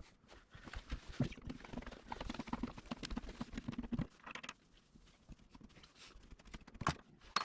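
Small clicks, taps and scraping of metal door-latch parts being handled and worked apart by hand, with two sharp clicks near the end.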